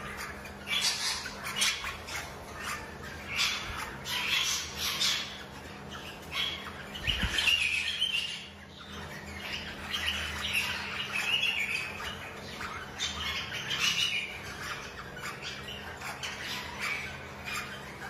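A mixed flock of caged rosellas squawking and chirping in many short, overlapping calls, over a steady low hum.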